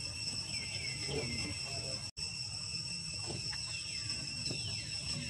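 Steady high-pitched insect chorus, with a few faint calls sliding downward in pitch over it. The sound cuts out completely for an instant about two seconds in.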